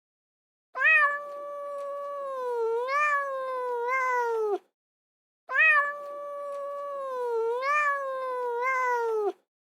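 A cat's long drawn-out meow, about four seconds long, wavering and swooping in pitch and sliding down at the end, played twice the same way.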